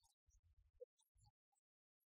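Near silence: faint room tone with a few soft, brief low thumps.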